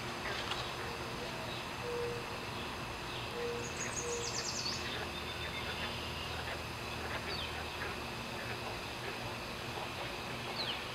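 Outdoor ambience with birds calling: a few short low hooting notes about two and four seconds in, a quick high trill around four seconds, and brief falling chirps later, over a steady background hum.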